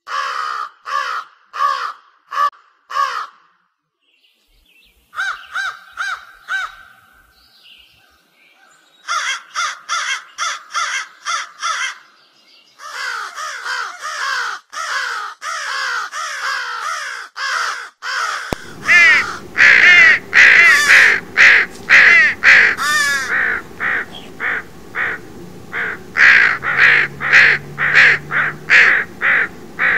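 Crows cawing over and over in quick harsh calls, about two or three a second, several birds overlapping. The calls come in runs broken by pauses at first, then run on almost without a break and louder from about two-thirds in, over a low steady rumble.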